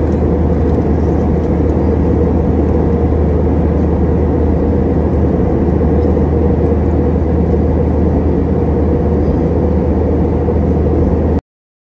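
Steady jet airliner cabin noise in flight: an even rush with a deep low hum underneath. The sound drops out for about half a second near the end.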